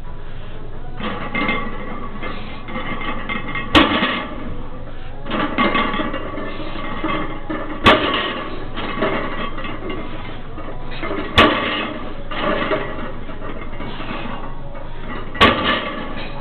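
A 525 lb barbell loaded with iron plates is set down on a rubber gym floor between deadlift reps: four sharp clanks about four seconds apart, the plates clinking and ringing briefly as they land.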